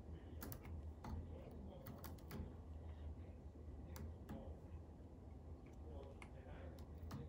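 Faint, scattered small clicks and ticks of hands handling thread, tape and a fishing rod blank at a rod-wrapping jig, over a low steady hum.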